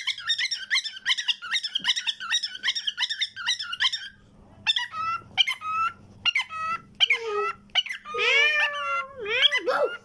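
Cockatiel chattering: a fast run of short squeaky chirps, about five a second, for the first four seconds, then a string of separate calls that slide in pitch, with one longer warbling call near the end.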